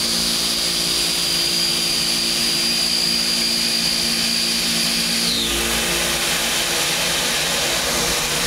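CNC milling machine spindle driving an end mill through a full-slot cut in metal: a steady cutting noise with a high, even whine that falls and stops about five seconds in, while the cutting noise runs on.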